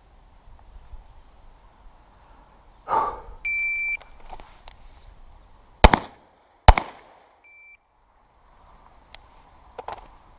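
Shot timer's start beep, then two pistol shots fired in quick succession, a little under a second apart, then a shorter beep at the same pitch marking the end of the 4-second par time.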